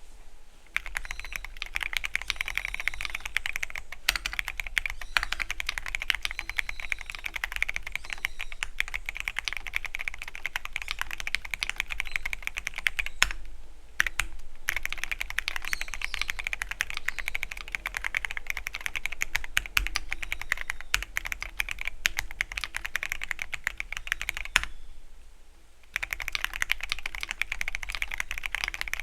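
Continuous fast typing on a Keychron Q13 Pro Max mechanical keyboard with red linear switches: a dense stream of key presses. It breaks off briefly about halfway through and again near the end before resuming.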